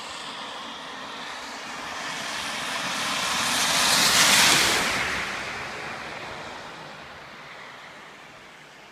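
Car driving past on a wet road covered in hail slush, its tyre noise swelling to a peak about four seconds in and then fading away.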